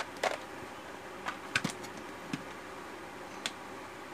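A few light, scattered clicks and taps from small parts of an opened smartphone being handled on a rubber repair mat, over a steady background hiss.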